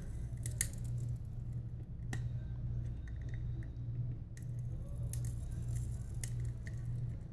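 Scattered light clicks and scrapes of an iSesamo pry tool being worked between a cracked phone screen's glass and the phone's frame to separate them, over a steady low hum.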